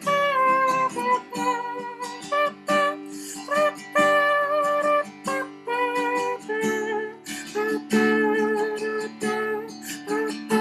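Acoustic guitar strumming chords under an instrumental melody line whose notes slide from pitch to pitch, with no sung words.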